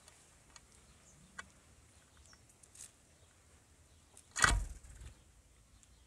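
Wings of a house sparrow fluttering close by as it takes off from the feeding pan: one short, loud flutter about four and a half seconds in, trailing off over half a second. A few faint ticks before it.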